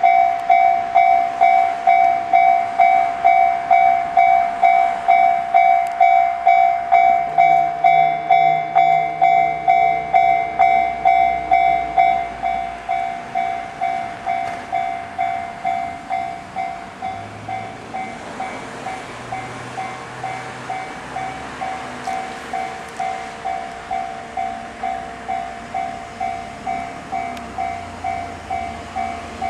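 A railway level-crossing alarm dings a little under twice a second and grows quieter about twelve seconds in, while a JR West 223 series 5500 electric train runs by with low motor hum and rail noise.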